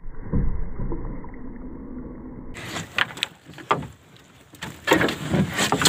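Small outrigger boat (banca) moving on the water: a dull low rumble for about the first two and a half seconds, then several sharp knocks and clatter from the boat.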